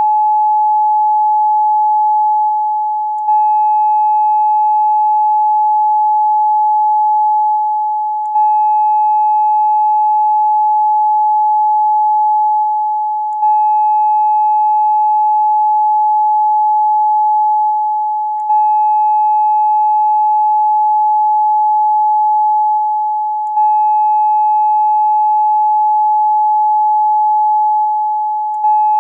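Steady electronically generated 852 Hz solfeggio tone, a single pure pitch with faint overtones, that fades slightly and restarts about every five seconds.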